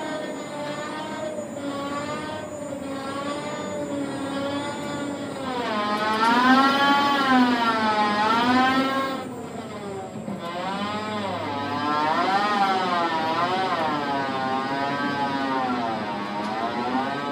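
Tower crane's drive motor whining as the crane slews, its pitch rising and falling in waves every second or two. It is loudest about six to nine seconds in.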